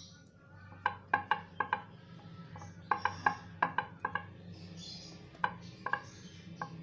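Sharp clicking taps in three quick clusters over a low steady hum.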